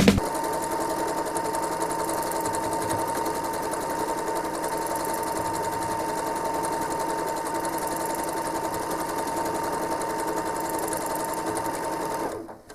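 Home sewing machine running steadily, its needle stitching through a quilt during free-motion quilting, with a constant hum; it stops near the end.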